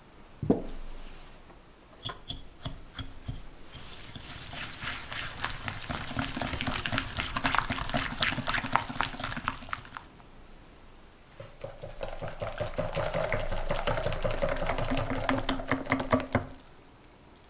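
A wire whisk beating egg yolks and sugar in a glass bowl, a rapid scraping, ticking stir in two runs of about six seconds each with a short pause between, stopping abruptly about a second before the end. The yolks are being beaten pale and thick. A single short knock comes about half a second in.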